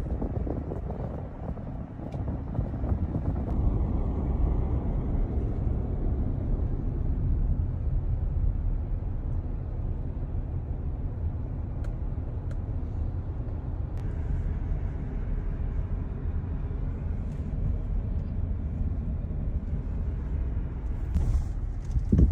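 Steady low rumble of a car driving, with road and wind noise.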